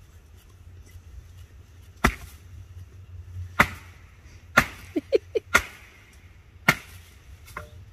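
Firewood being struck: five sharp wooden knocks, spaced about a second apart.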